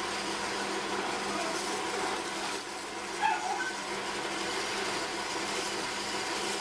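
Potter's wheel spinning with a steady low hum, while wet clay is squeezed up into a cone during centering. A brief high chirp sounds once about three seconds in.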